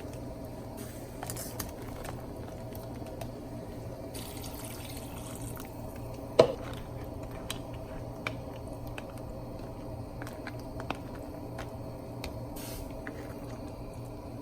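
Water and liquid in a seafood-boil pot, sloshing and dripping as crab legs and more water go in, over a steady hum. Two stretches of hiss come in the first few seconds, there are scattered light clicks, and one sharp knock comes about six seconds in.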